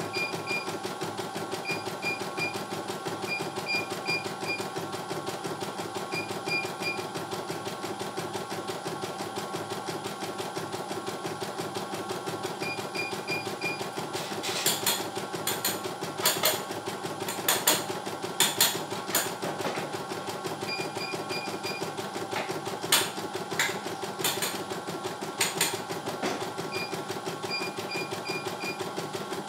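CNY E900 computerized embroidery machine stitching a design, a steady motor hum with short high chirps in groups of three or four every second or two. From about halfway through, for some ten seconds, a run of sharp, louder clicks breaks in.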